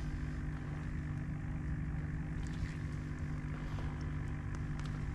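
Steady motor hum with a constant low pitch and faint ticks over it.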